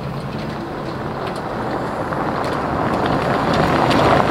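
A vehicle driving, its engine and road noise growing louder toward the end, with a few light rattles.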